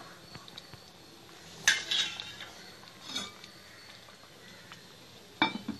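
Kitchen utensil clinks: a cooking spoon knocks sharply against the pan about one and a half seconds in, a softer knock follows a second or so later, and a glass pan lid clanks down onto the pan near the end.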